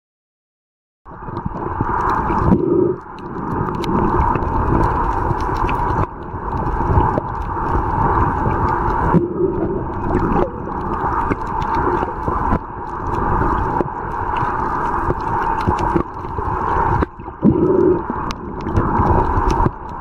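Muffled underwater ambience: a steady hum and a dull rush of water with low thumps, starting about a second in and changing abruptly every few seconds.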